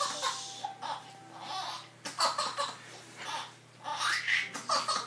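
Baby laughing in a string of short bursts.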